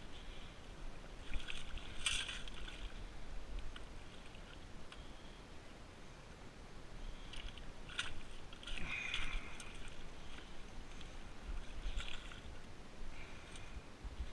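Irregular scrapes and crunches of digging in wet sand and stones, coming in short scattered bursts.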